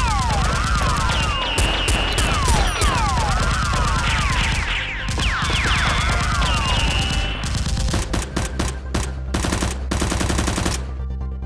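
Gunfire sound effects: rapid automatic fire with whistling tones that fall in pitch. Near the end the firing breaks into separate short bursts.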